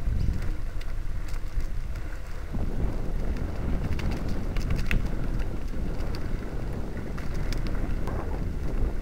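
Wind rushing over the microphone as a homemade chain-driven geared unicycle is ridden over dirt, with scattered clicks and rattles from its drive chain and wheel. The rumble gets fuller about two and a half seconds in.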